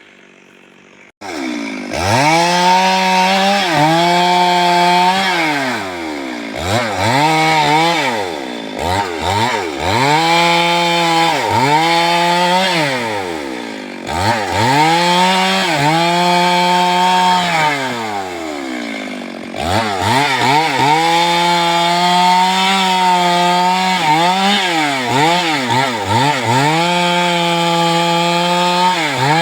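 Chainsaw cutting wood, its engine repeatedly opened up to full throttle and held there for a few seconds, then let fall back toward idle. It comes in suddenly about a second in, with a few quick short blips of the throttle in the middle.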